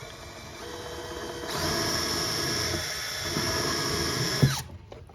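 Handheld power drill running steadily, getting louder and higher about a second and a half in, then stopping suddenly near the end with a short knock, as it bores or drives a screw into plywood.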